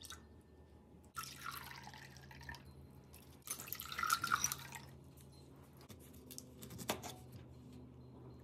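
Liquid poured into a glass tumbler in two short pours. The second pour goes from a glass through a fine mesh strainer holding back ice cubes. A single sharp clink follows near the end.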